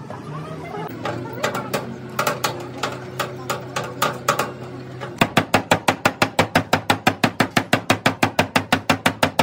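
Hammer striking the steel body panel of a Toyota Fielder to knock out dents. Irregular taps at first, then from about five seconds in a fast, steady hammering of about five blows a second, which is the loudest sound.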